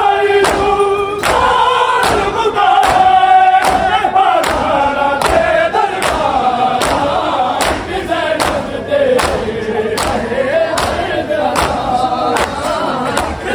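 A crowd of Shia mourners chanting a noha together in unison, over steady sharp beats of matam a little faster than one a second.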